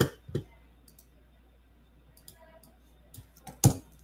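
A handful of separate clicks on a computer keyboard and mouse, spread out rather than steady typing, with the loudest click near the end.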